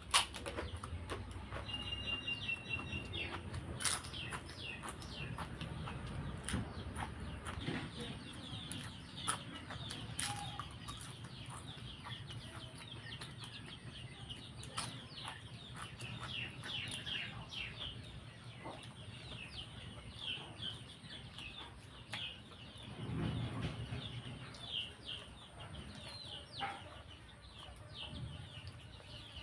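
Close-up eating sounds: crunching of papad and chewing, with sharp crunches just after the start and about four seconds in. Birds call steadily in the background, a run of many short chirps.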